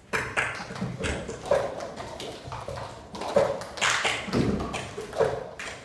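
A group of children tapping and knocking cups on a wooden bench in unison, in a rhythm whose pattern comes back about every two seconds. It starts suddenly.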